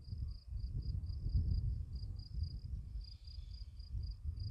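An insect chirping in a steady high-pitched pulse, about four or five chirps a second, over a low, gusty rumble of wind on the microphone.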